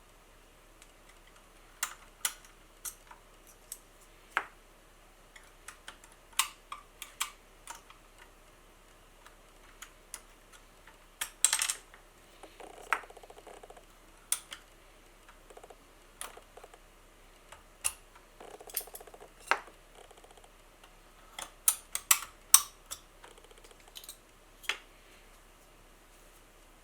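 Keystrokes on a FirstBlood B21 mechanical keyboard with Cherry MX Brown switches: scattered single presses and a few quick runs of clicks, irregularly spaced. The board has no damping foam inside, and the reviewer calls its typing sound hollow and echoing.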